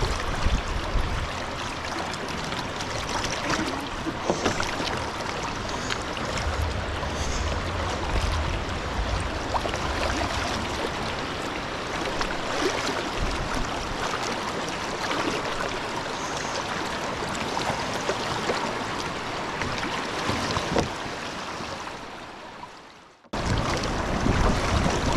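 River water running and splashing around a person wading and pushing a kayak, with scattered short splashes or knocks and some low rumble. Near the end it fades away, then comes back in suddenly at the same level.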